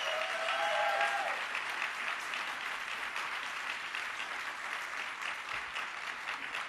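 Audience applauding, a dense patter of clapping with a voice or two calling out near the start, tapering slightly toward the end.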